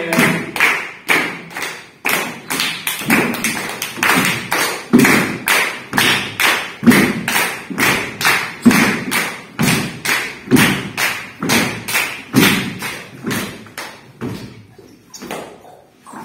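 Feet stamping and tapping on a floor in a steady rhythm, a few beats a second with a stronger stamp about once a second, dying away near the end.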